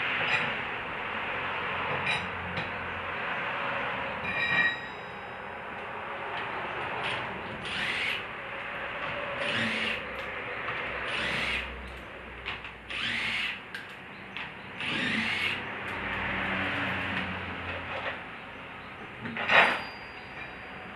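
A power tool run in about five short bursts of roughly a second each, driving lug nuts during a tyre change. A single sharp knock comes near the end.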